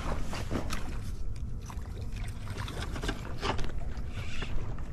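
Wind buffeting a body-worn camera microphone as a low, steady rumble, with scattered short clicks and scuffs from handling the fishing rod and spinning reel.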